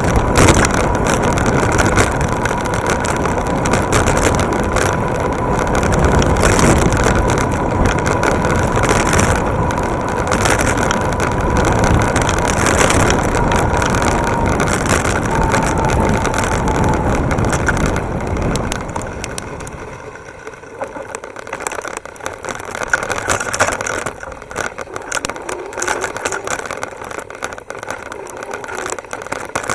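Wind buffeting the microphone and tyre and road rumble from an electric bike ridden fast along a paved path, with a faint steady whine. About eighteen seconds in the noise drops off to quieter rattles and clicks as the bike rolls slowly onto grass.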